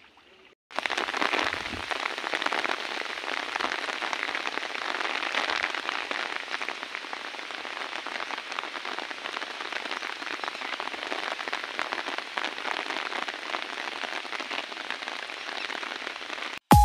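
Steady rain falling, a dense patter of drops that starts a moment in and cuts off suddenly near the end.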